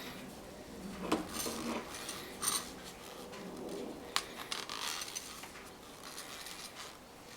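Hand scrubbing of a faucet surface with a scouring pad or brush to lift hard-water scale and old sealer: short scratchy rubbing strokes broken by small clicks and clinks as the part is handled.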